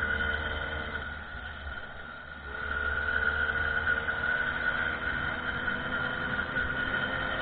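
Small 50cc motorcycle engine running on the move, with wind rumble on the microphone. The engine sound drops off about a second in as the bike takes a curve, then picks back up to a steady high whine about two and a half seconds in.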